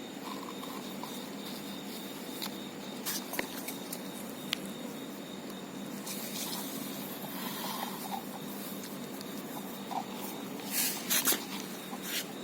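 Puppies at a milk bowl: scattered short clicks and brief rustling noises, a few louder ones near the end, over a steady background hum.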